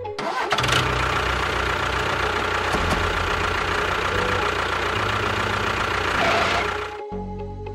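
Tractor engine running steadily with a low, knocking beat. It starts just after the beginning and dies away about seven seconds in.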